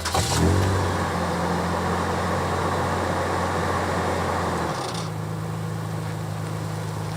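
Toyota FJ Cruiser's 4.0-litre V6 engine running. Its pitch rises in the first second, holds steady, then drops to a different steady note about five seconds in.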